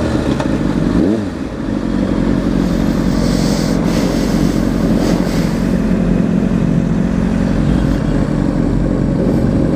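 Motorcycle engine heard from the rider's own bike while riding: a brief rev that rises and falls about a second in, then steady running as the bike pulls on.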